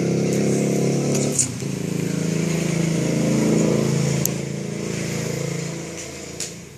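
An engine running steadily, with two sharp clicks along the way. It fades away over the last second or two.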